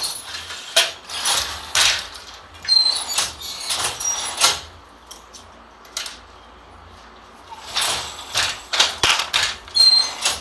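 Wooden handloom clattering in bursts of sharp knocks from the beater and shuttles as a korvai-border sari is woven, with a few short high squeaks. The knocking stops for about three seconds in the middle, then starts again.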